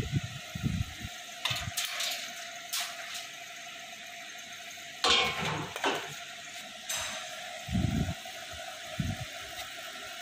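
Thin laser-cut plywood pieces clattering and knocking as they are lifted off the cutting bed and handled, with a louder knock and rattle about five seconds in. Under it runs a steady hum from the CO2 laser cutting machine.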